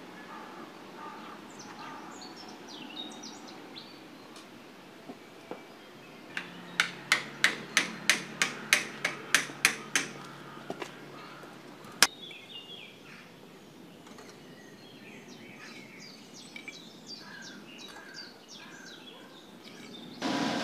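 Small birds chirping, broken midway by a run of about a dozen sharp, evenly spaced clicks, about three a second for some four seconds, with one more sharp click shortly after.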